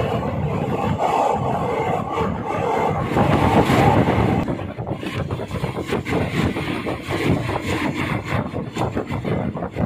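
Passenger train running, heard from inside the moving carriage: a loud, steady rumble of the wheels on the rails. About four seconds in it turns into a rapid, uneven clatter.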